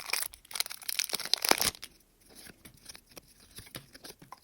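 One Piece Card Game booster pack wrapper being torn open and crinkled: a dense run of tearing and crackling for about the first two seconds, then lighter scattered crinkles.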